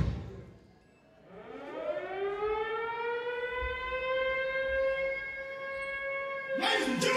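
Air-raid siren sound effect in the dance track: after the beat cuts out, a wail rises over about two seconds and then holds one steady pitch, with a rushing sweep coming in near the end.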